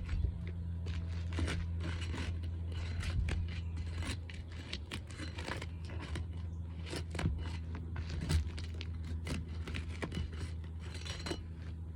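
Asphalt roof shingles being unsealed: irregular scraping, crackling and tearing as the tabs are pried loose from their seal strips.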